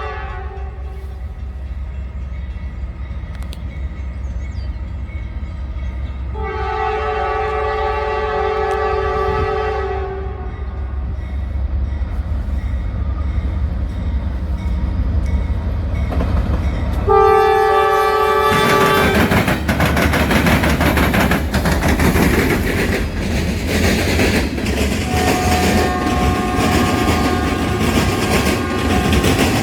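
Freight locomotive's multi-chime air horn, the end of one blast fading at the start, then a long blast and, about ten seconds later, a short one. As the short blast sounds, the train arrives close by, and the loud rumble and wheel clatter of the passing freight train take over.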